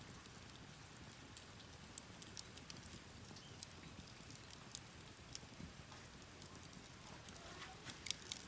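Campfire crackling faintly: irregular sharp pops and snaps over a soft hiss, with a few louder pops near the end.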